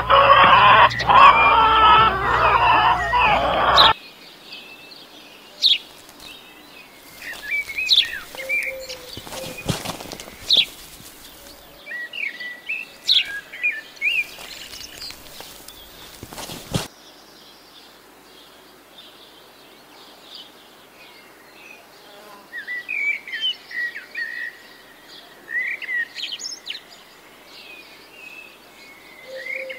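Chickens clucking loudly for the first few seconds. After an abrupt cut, quiet outdoor ambience follows, with small birds chirping and tweeting on and off.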